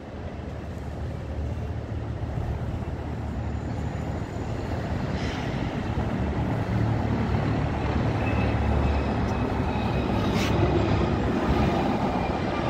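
Street traffic: a low rumble of passing vehicles that grows steadily louder as a car drives past close by.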